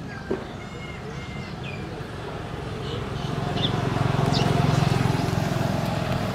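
A motor vehicle's engine hum passing by, swelling from about three seconds in, with short high bird chirps scattered over it.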